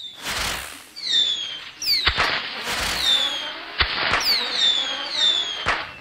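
Fireworks: several whistling rockets, each whistle falling in pitch, with whooshes and three sharp bangs spread across the few seconds.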